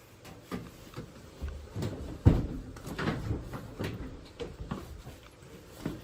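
Irregular knocks and thumps, the loudest about two seconds in, as a washing machine is pushed and shifted inside a tight cabinet.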